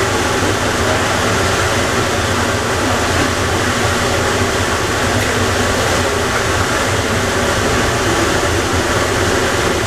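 Steady rumble and rushing noise of the Plane Train automated people mover at Atlanta airport, with no changes in level.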